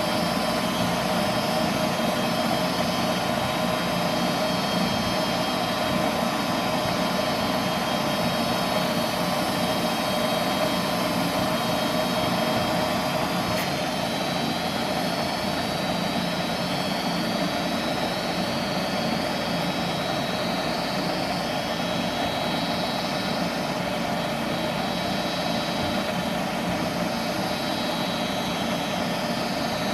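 Goodman natural gas furnace running, its fan motor whirring steadily with a constant hum tone after having spun up to speed.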